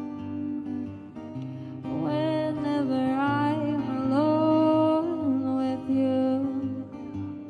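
Music: guitar accompaniment under a wavering melody line that rises and falls from about two seconds in until about five seconds in.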